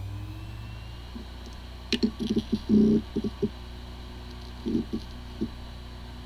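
Hard drive spinning up: a steady motor hum and a rising whine that levels off about a second in. Then comes a flurry of light head-seek ticks and clatter, and a few more ticks near the end. It sounds like a healthy drive, although this drive has firmware corruption and the computer cannot detect it.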